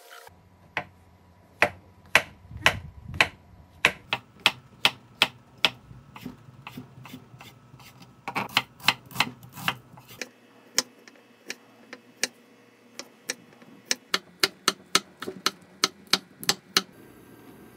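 Chef's knife slicing mushrooms, garlic and green chili on a wooden cutting board: a steady run of sharp knocks, a few a second, coming faster in two quick bursts.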